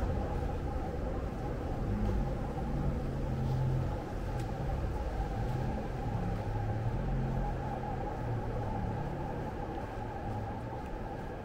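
Steady low rumble of city street traffic, with a constant hum above it.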